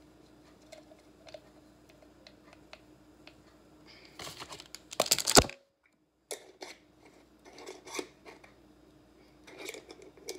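Spice jars, lids and metal measuring spoons handled at a kitchen counter: light scattered clicks and taps, with a louder clatter about four to five seconds in. The sound cuts out completely for about half a second just after it.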